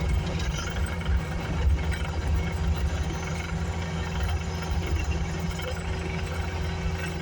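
Skid steer loader's engine running steadily as the machine drives along a road, a continuous low hum.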